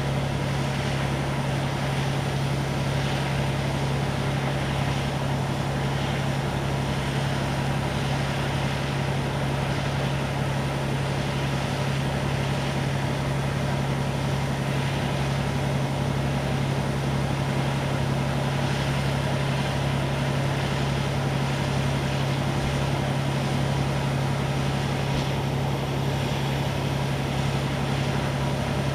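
Fire apparatus engine running steadily at constant speed while pumping water onto the burning yachts, a deep unchanging hum under a rushing hiss of water spray.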